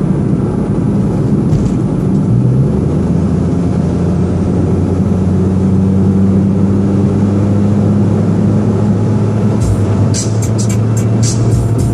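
Perodua Axia's engine and road noise heard from inside the cabin while driving, a steady low drone whose pitch steps up about two and a half seconds in. Near the end a run of sharp, evenly spaced high ticks begins over it.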